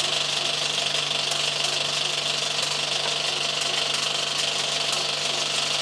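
Vintage cinema film projector running: a steady, rapid mechanical clatter from its film-advance mechanism over a constant motor hum and hiss.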